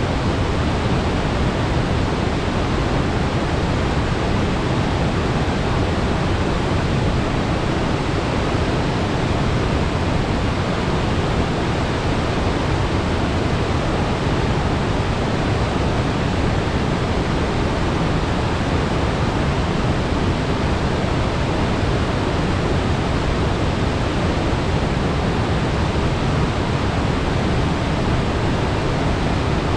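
Sugar River waterfall: a steady, loud rush of water falling over the drop, with no let-up.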